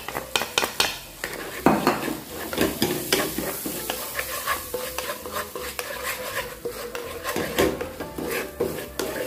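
Wooden spatula stirring and scraping flour into sizzling melted butter in a stone-coated nonstick frying pan, with quick repeated taps against the pan: a butter-and-flour roux cooking, the first stage of a béchamel sauce.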